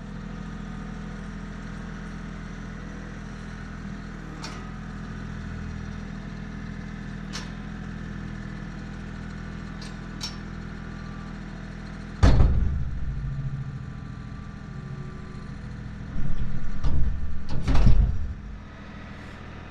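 A vehicle engine running steadily at idle, with a few sharp clicks and loud thumps and knocks about twelve seconds in and again near the end.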